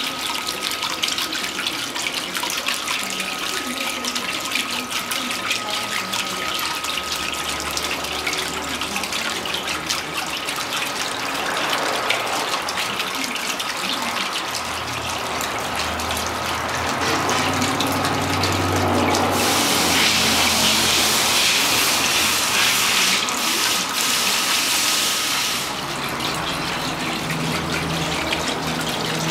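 Water sheeting down the face of a free-standing water wall fountain and splashing into its basin: a steady rushing splash. It grows louder and brighter for several seconds past the middle, then drops back suddenly near the end.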